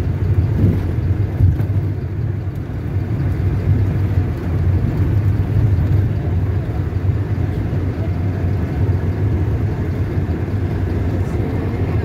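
Steady low engine and road rumble of a moving vehicle, heard from inside the cabin.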